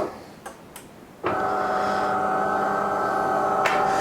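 De'Longhi Eletta bean-to-cup coffee machine running with a steady mechanical hum while heating up. The hum cuts out at once, a couple of faint clicks sound in the short gap, and after about a second it starts again abruptly and runs on steadily, with a click near the end.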